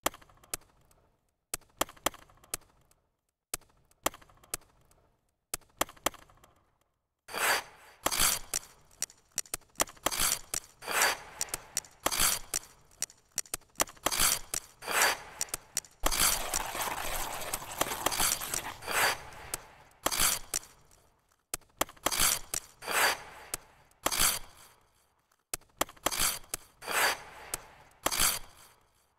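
Figure skate blades scraping and cutting on ice in short, sharp strokes. The strokes are sparse and soft for the first several seconds, then come thick and loud, with one longer continuous scrape about halfway through.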